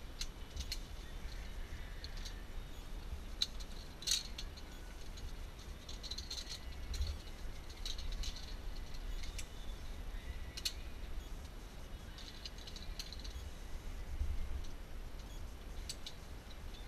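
Scattered light clicks and rattles from metal zipline harness hardware as the wearer shifts, over a low wind rumble on the microphone.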